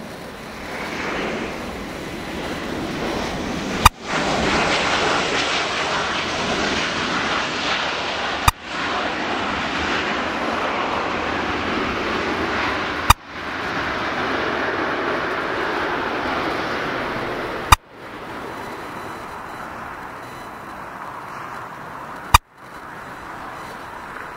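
Jet engine roar from an Alitalia Boeing 777 rolling along the runway. It swells about a second in, holds loudest through the middle and eases off after about eighteen seconds. Sharp clicks break in about every four and a half seconds.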